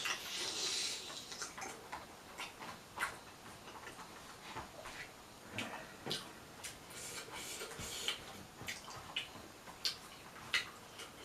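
Close-up mouth sounds of someone eating: chewing with irregular wet clicks and smacks, a few each second.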